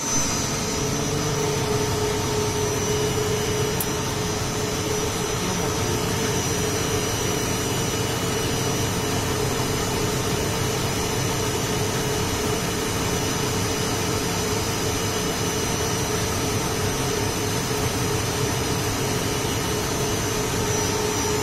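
Mori Seiki SL-65 CNC lathe's 37 kW spindle motor running steadily on a replacement INVT frequency inverter: an even whirring hum with a thin high whine over it. The drive is in forward run, the sign that the swapped-in inverter is driving the motor properly.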